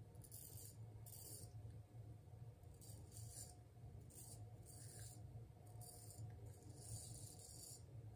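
A 9/8" ArtRazor straight razor scraping through lathered stubble on the neck in a series of short, faint strokes, roughly one a second. The shaver says the edge needs honing.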